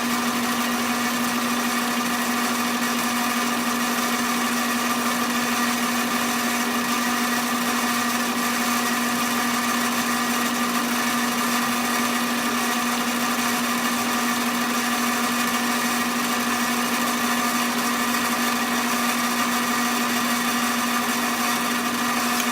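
Sidney metal lathe running steadily while it winds wire into a coil on a rod: a constant, even whine that does not change in pitch or level.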